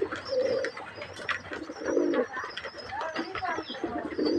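Domestic fantail pigeons cooing, several low rounded coos repeating every second or so, with faint higher chirps in the background.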